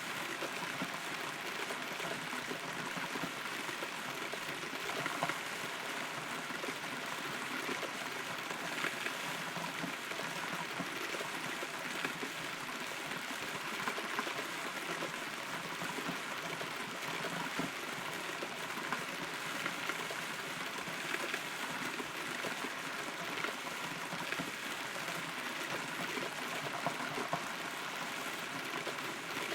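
Steady rain heard from inside a hollow rotten tree, an even hiss of falling water with occasional louder single drops.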